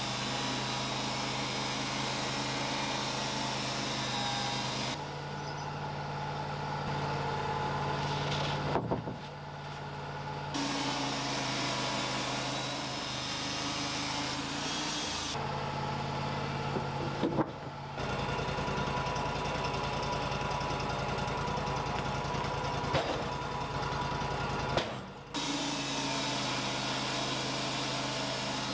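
Wood-Mizer LT35 band sawmill running, its engine holding a steady note while the band blade cuts through a Douglas fir log. The sound changes abruptly several times, the sawing hiss dropping away and coming back.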